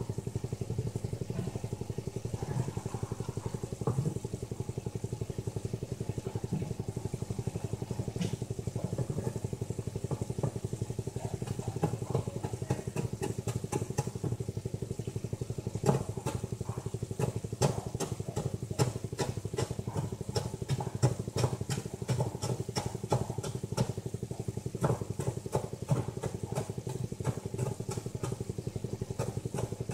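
Knife chopping fresh coriander and parsley finely on a cutting board: sharp taps, a few at first, then coming quick and thick from about halfway. A steady low machine hum runs underneath throughout.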